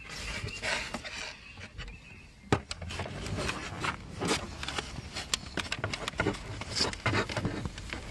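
A BMW F11's plastic lower dashboard trim panel being handled and offered up under the glovebox: rubbing and scraping of plastic with scattered clicks and knocks, one sharp knock about two and a half seconds in.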